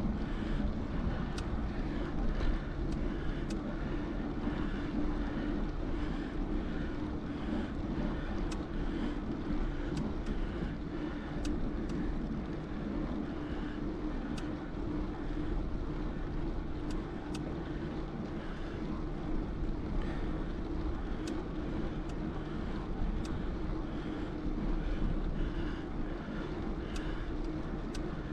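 A bicycle rolling steadily along a paved path, with wind rumbling on the microphone and light clicks and rattles from the bike scattered throughout.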